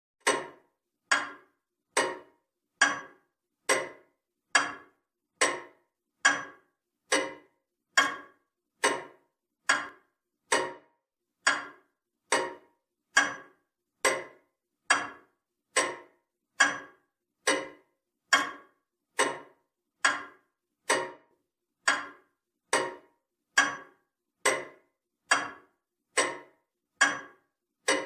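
Comtoise clock ticking at a steady 70 beats a minute, each tick a sharp knock that rings and fades within about half a second.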